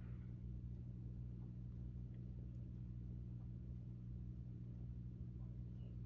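Steady low hum, like mains or appliance hum, running evenly through the room tone, with only a few faint soft ticks.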